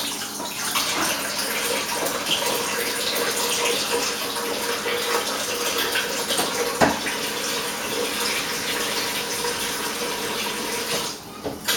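Hot water running steadily from a tap into a cooking pan in the sink, with one sharp knock about seven seconds in and a brief drop in the flow near the end.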